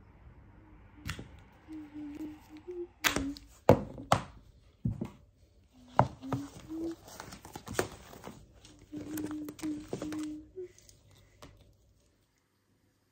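Sharp clicks and knocks of small objects being handled and set down on a wooden desk, a dozen or so in quick succession, with a faint low hum between them. They stop near the end.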